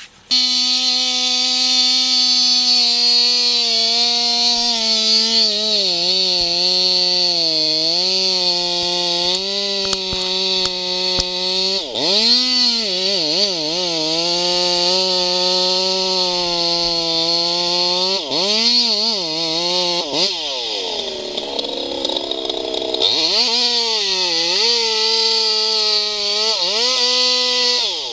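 Two-stroke chainsaw running at high revs while cutting into a large tree trunk, its pitch sagging under load several times and recovering. About twenty seconds in the revs drop away briefly before it speeds up again.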